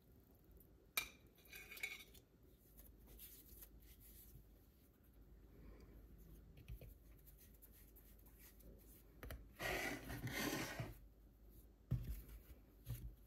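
Faint kitchen handling sounds. About a second in, a metal spatula clicks as a fried egg is lifted off an iron tawa onto a plate. Later a dough ball is pressed and turned in dry flour, with a longer rustling scrape near ten seconds and soft thumps as it is set down on the countertop.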